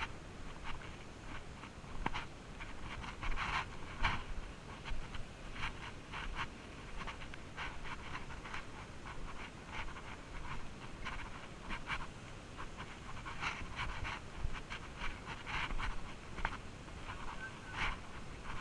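A hiker breathing hard close to the microphone, in quick, uneven breaths.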